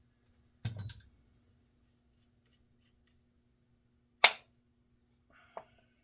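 Handling noises of a vintage baitcasting reel and small tools on a workbench: a brief knock and rattle near the start, one sharp loud click about four seconds in, and a softer knock just after it, over a faint steady hum.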